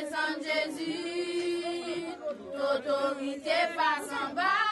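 Several voices singing together, with notes held for a second or so between shorter sung phrases.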